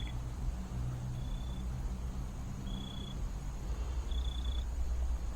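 Wind buffeting the microphone in a steady low rumble, with three short, high, steady tones about a second and a half apart.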